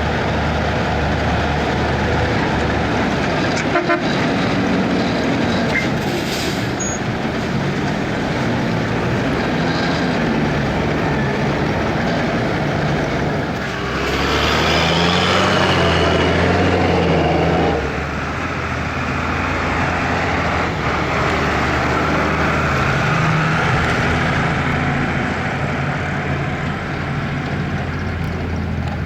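Fendt tractor diesel engines running steadily under working load as the potato harvest goes on, a continuous mechanical drone. About halfway through it grows louder for a few seconds, the engine note rising and then falling back.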